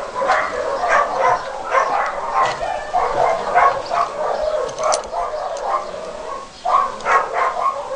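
A dog barking and yipping, short calls following one another almost without a break, with a brief lull about two-thirds of the way through.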